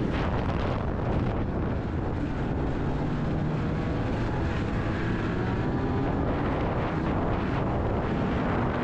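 Snowmobile engine and track running steadily at riding speed, with some wind noise on the microphone.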